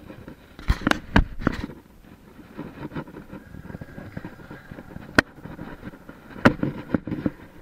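A FAT MAX scooter converted to an electric hub drive, rolling over cracked asphalt: a faint steady rolling noise broken by scattered sharp knocks and clatters as the scooter jolts, three close together near the start and two more later on.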